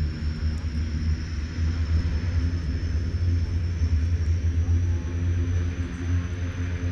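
The Airbus A380's four jet engines give a deep, steady rumble as the airliner flies its display. Over the rumble sits a faint thin whine that slowly rises in pitch.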